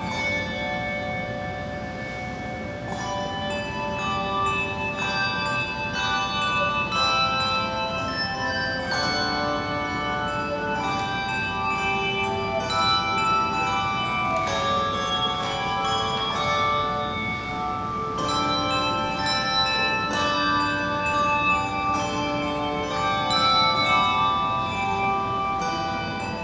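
Handbell choir ringing a piece of music: many tuned hand bells struck in a steady rhythm, their tones ringing on and overlapping in a large room.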